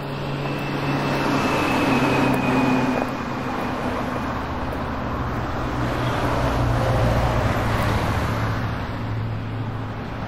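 Steady vehicle traffic noise: a continuous rushing with a low engine hum underneath, and a faint high whine in the first few seconds.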